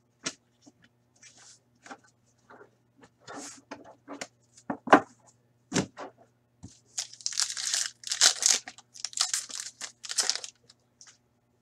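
A foil trading-card pack being torn open and crinkled, a dense rustle from about seven seconds in until near the end. Before it come scattered light taps and clicks of cards handled on a table, with one sharper knock about five seconds in.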